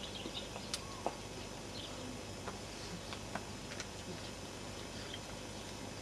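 Steady, fairly quiet background hiss of outdoor ambience, with faint scattered chirps and a few small clicks.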